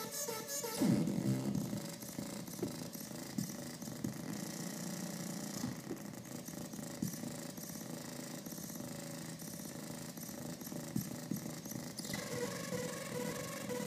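Electronic noise from a homemade two-in-one effects pedal box: a steady buzzing drone with irregular crackles, its texture shifting as the knobs are turned. Clearer pitched tones come back near the end.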